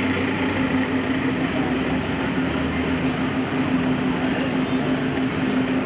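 Steady murmur of a street crowd over a constant humming tone.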